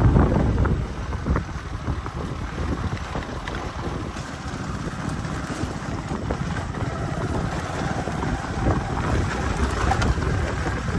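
Wind buffeting the microphone during a ride on a rough dirt track, over the steady low rumble of the moving vehicle.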